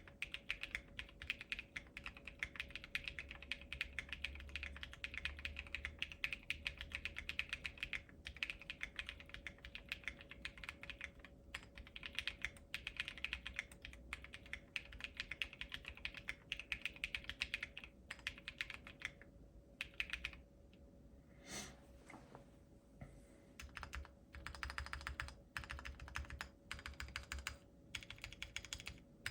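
Wind.X mechanical keyboard with lubed Durock Sunflower tactile switches in a POM plate and OSA-profile PBT keycaps, typed on quickly and steadily. About two-thirds of the way through the typing thins to a few scattered keystrokes for several seconds, then picks up again.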